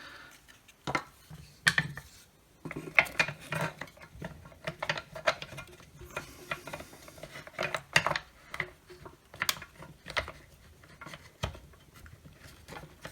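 Irregular clicks, knocks and light clatter of a Milwaukee circular saw's plastic housing and small metal parts being handled and fitted together during reassembly.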